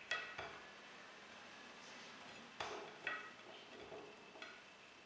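Several faint, light clinks and taps on a ceramic plate as peeled eggplant slices are laid onto it, a few of them with a short ring.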